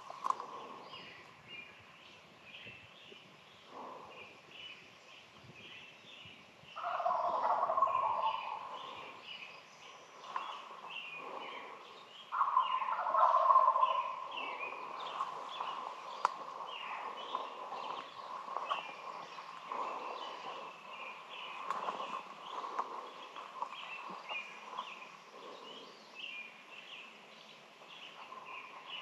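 Wild turkey gobblers gobbling from the roost, two loud rattling gobbles about 7 and 12 seconds in, with small songbirds chirping throughout.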